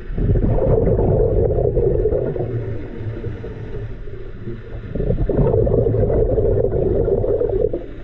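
A scuba diver's exhaled breath bubbling out of the regulator, heard underwater: two long, rough exhalations, the first lasting about two seconds and the second starting about five seconds in.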